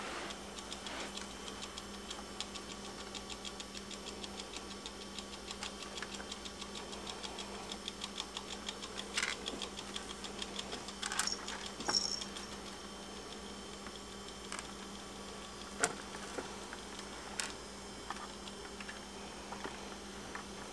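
Pet rats moving about in a wire cage: a quick run of small clicks and scratches for the first half, then a few sharper single clicks, over a steady low hum.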